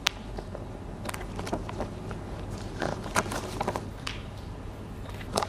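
Scattered light taps and rustles over a quiet room hum, with a cluster of small clicks about three seconds in.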